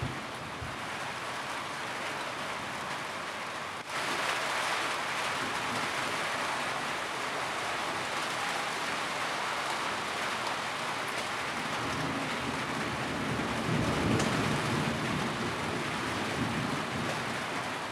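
Steady heavy rain on a roof, which turns suddenly louder about four seconds in. A low rumble of thunder swells and fades through the later part.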